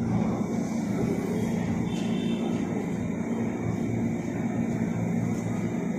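Steady, even drone of a KRL electric commuter train standing at the platform with its doors open, its on-board equipment running.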